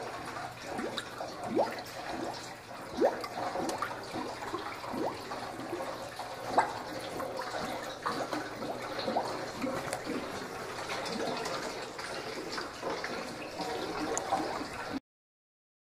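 Warm engine oil draining from the oil pan and splashing and gurgling into a drain funnel, with a few louder splashes along the way; it stops abruptly near the end.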